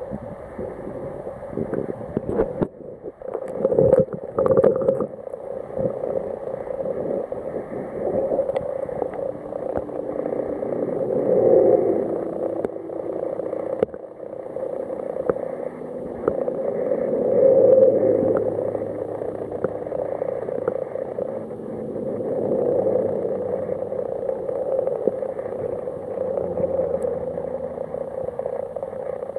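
Muffled, steady underwater rush of flowing river water picked up through a camera's waterproof housing, swelling and easing every few seconds, with a few dull knocks about three to five seconds in.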